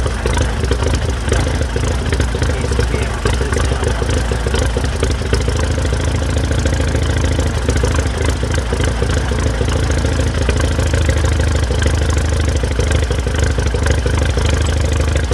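1937 Massey-Harris Challenger tractor engine idling steadily.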